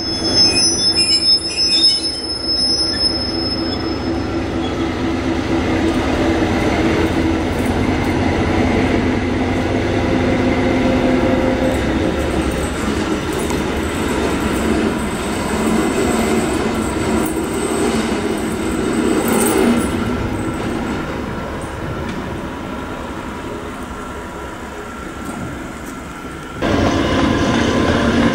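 Class 295 diesel-hydraulic shunting locomotive running light as it runs around its train, its diesel engine running steadily, with a high wheel squeal in the first few seconds. The engine sound gets louder near the end.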